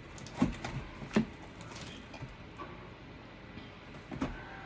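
Containers and packages knocked and shifted while someone rummages through a pantry: two sharp clacks in the first second and a half, then another near the end, over a faint steady room background.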